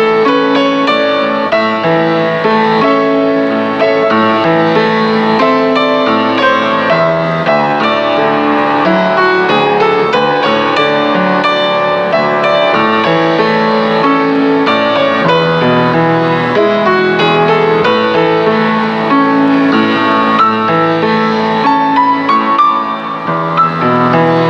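Instrumental background music led by piano, a melody of changing notes at a steady level.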